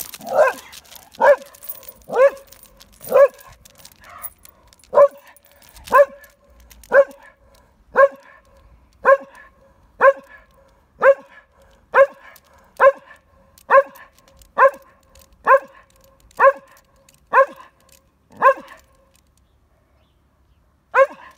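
A leashed dog barking repeatedly at a cat, one bark about every second, some twenty in a row. The barking stops a couple of seconds before the end, then one more bark follows.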